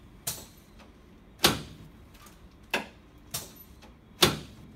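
Five sharp knocks at uneven spacing, the loudest about a second and a half in and near the end: chiropractic adjustment thrusts delivered on a knee-chest adjusting table.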